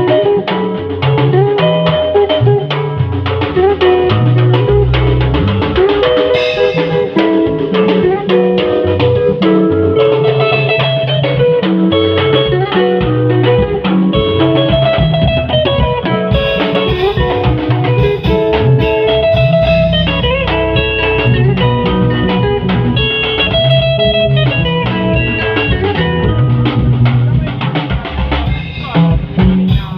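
Band music with guitar and a drum kit playing a steady beat.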